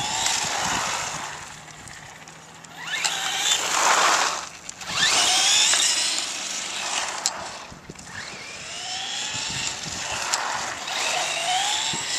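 Brushless electric motor of a Traxxas Slash 4x4 RC truck, running on its stock 7-cell NiMH pack, whining up in pitch about five times as it accelerates. A loud rushing noise comes in between about three and six and a half seconds in.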